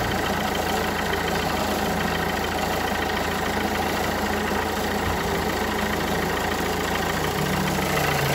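Renault K9K 1.5 dCi four-cylinder turbodiesel idling steadily.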